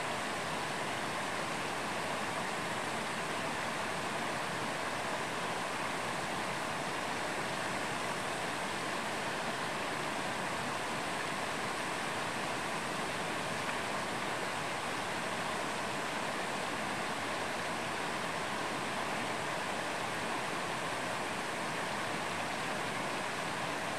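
Mountain stream running steadily: an even, unbroken wash of water.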